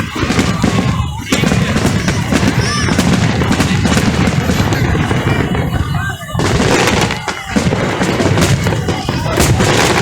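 Fireworks display: a dense run of bangs and crackling bursts, with music and voices underneath.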